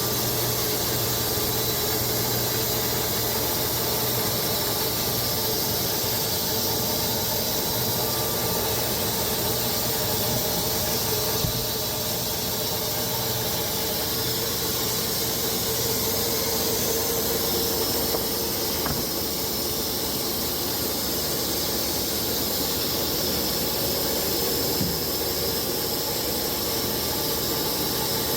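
Wood-Mizer LX250 electric band sawmill cutting through hardwood logs: a steady whine from the blade over an even hiss, with no change through the cut.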